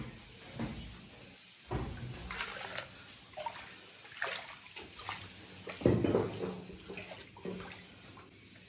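Metal ladle scooping and pouring hot paye broth in a large aluminium pot, the liquid sloshing and splashing in irregular bursts; the biggest splash comes about six seconds in.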